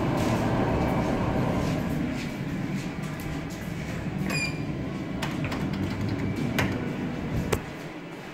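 Schindler holeless telescoping hydraulic elevator in motion, heard from inside the cab as a steady low rumble with a few light clicks. The rumble ends with a click about seven and a half seconds in, as the car settles to a stop.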